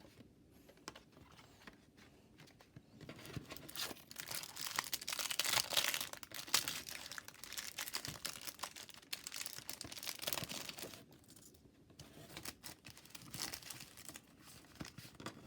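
Foil trading-card pack wrapper crinkling and tearing as it is opened by hand, in several bouts of rustling, the busiest about four to seven seconds in.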